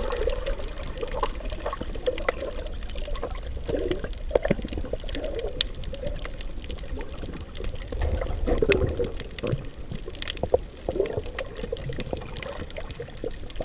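Muffled water movement heard underwater through a GoPro's waterproof housing: a shifting sloshing noise with scattered faint clicks.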